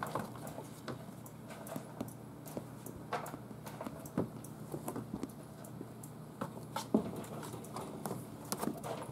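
Kittens scampering and pouncing on a bare wooden floor and a carpeted cat tree: irregular light paw taps and thumps, the loudest one about seven seconds in.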